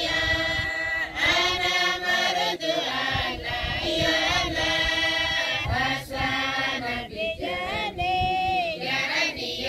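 A congregation of Uduk men, boys and women singing a hymn together in many voices, unaccompanied. The singing comes in short phrases with brief breaks between them.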